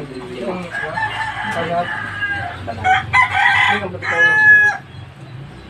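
A rooster crowing once, a loud call of about two seconds starting around three seconds in.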